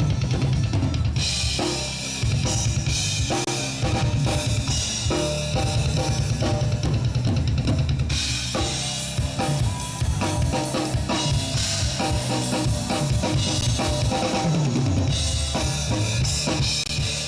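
Background music: a song with a full drum kit and a heavy bass beat.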